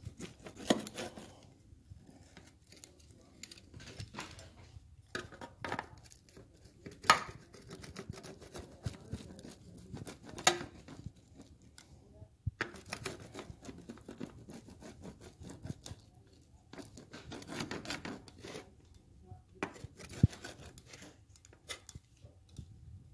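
Pizza being cut: a blade scraping and crunching through the crust in short irregular strokes, with a few sharp knocks scattered through.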